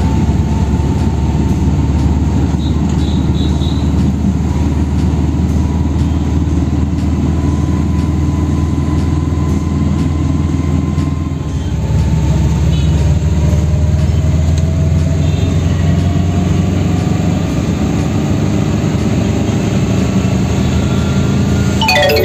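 Car engine and road noise heard from inside the cabin while driving in city traffic: a steady low drone that dips briefly about halfway through, after which the engine note climbs gradually as the car accelerates.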